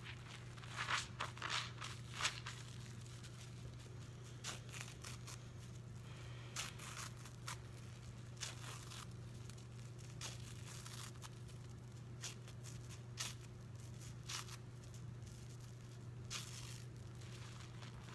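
A soap-soaked cellulose sponge being torn apart by hand in sudsy water: irregular wet tearing and squishing crackles, loudest in the first couple of seconds, over a faint steady low hum.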